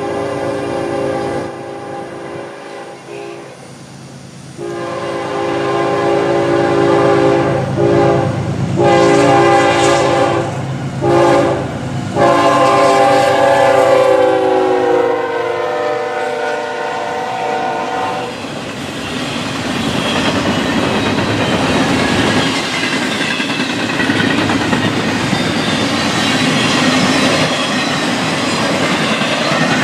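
Diesel freight locomotive horn sounding a series of blasts, the final long blast dropping in pitch as the locomotive goes by. It is followed by the steady rumble and clatter of freight cars rolling past.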